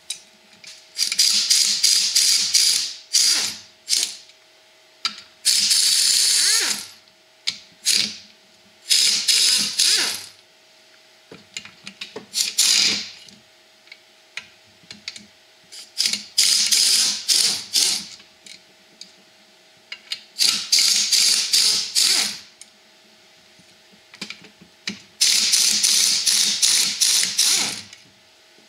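Handheld impact wrench running bolts out of a Briggs & Stratton 17 HP engine's crankcase cover, in eight or so short rattling bursts of one to three seconds each, with pauses between as it moves from bolt to bolt.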